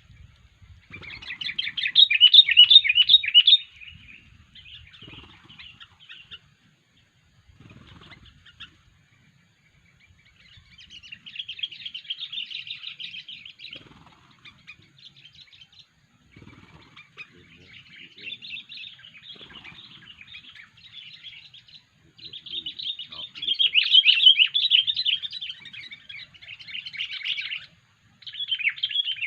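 Sooty-headed bulbul (kutilang) calling in bursts of rapid, chattering notes separated by short pauses, loudest about two seconds in and again past the middle.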